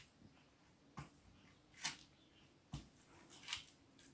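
Faint, soft taps and brief rustles of a fluted round cookie cutter being pressed into soft dough on a plastic sheet, four or five times.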